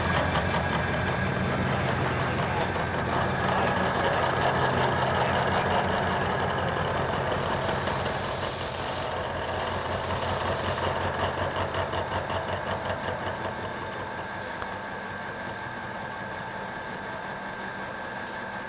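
CNC UH-1250A machining center running a milling test: a steady machine hum with fast, even pulsing from the cutting. It gets quieter about halfway through and again toward the end.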